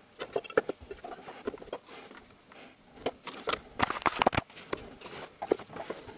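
Plastic timing-belt cover on a Honda D17A engine being worked loose and pulled by hand: scattered light clicks, knocks and scrapes of plastic, busiest about three to four and a half seconds in.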